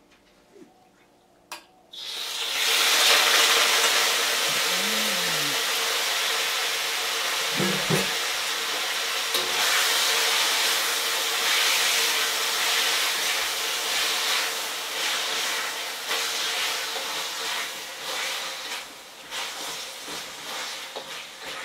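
Raw chicken pieces sizzling in hot olive oil in a steel wok: a loud, steady hiss that starts suddenly about two seconds in as the chicken hits the pan. Near the end the sizzle eases and is broken up by spatula strokes stirring the pieces.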